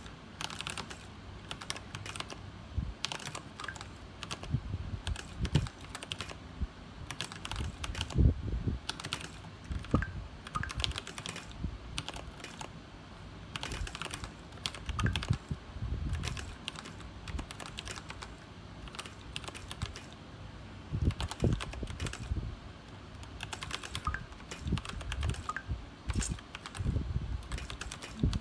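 Royal Kludge RK61 mechanical keyboard with brown (tactile) switches being typed on: a continuous, irregular run of key clicks with the occasional heavier thump of a larger key.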